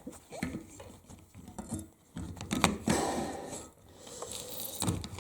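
Small adjustable pliers scraping and clicking against the flush valve's locking nut under a toilet tank as the nut is worked loose. Irregular scrapes and clicks, loudest about two to three seconds in.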